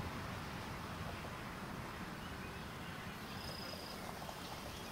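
Faint steady outdoor background noise with no distinct events, and a brief faint high tone a little over three seconds in.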